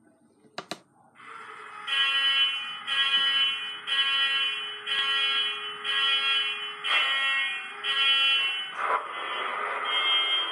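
Digitrains Class 66 diesel sound played from a Zimo DCC sound decoder through a Bachmann model locomotive's small speaker, with the locomotive standing still. After a click, the engine sound builds up and pulses about once a second, a start-up sequence, then settles into a steadier running sound about nine seconds in.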